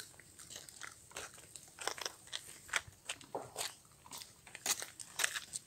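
An animal eating food: irregular sharp crunches and crackles.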